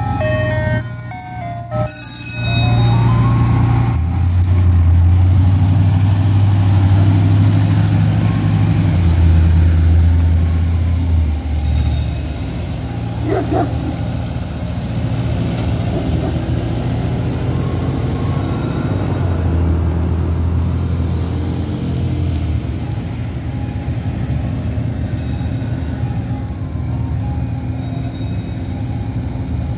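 An ice cream truck's chime jingle plays for the first two seconds and stops. Then the truck's engine runs loud as it drives past and pulls away, and its deep drone carries on more quietly, swelling again about two-thirds of the way through.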